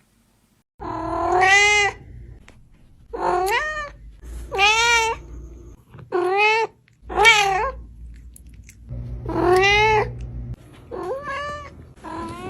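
Domestic cat meowing over and over: about eight loud, drawn-out meows, each rising and then falling in pitch, beginning about a second in with short pauses between.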